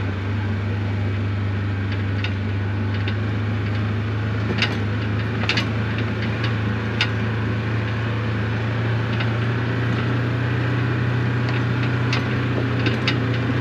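An engine running at a steady low hum, with scattered light clicks.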